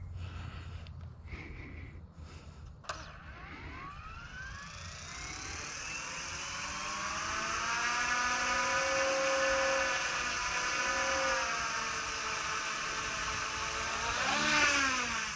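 F09 Black Hawk RC helicopter's electric motor and rotor spooling up on the ground: a whine that rises in pitch over several seconds, then holds steady. Near the end the pitch quickly rises and falls before it winds down.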